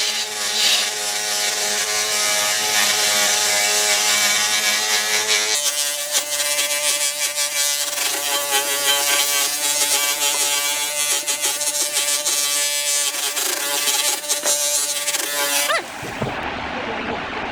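Electric power tool running with a steady motor whine while working wood. The sound shifts about five seconds in and turns to a rougher grinding noise near the end.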